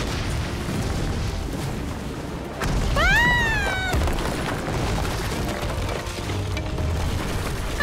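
Cartoon soundtrack: dramatic background music over the hiss of heavy rain and deep rumbling booms, which swell a little under three seconds in. About three seconds in comes one short high tone that rises then falls.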